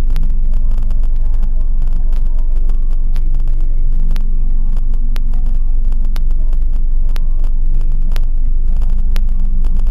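Steady low rumble of a car's engine heard from inside the cabin on a dashboard camera, with scattered sharp clicks.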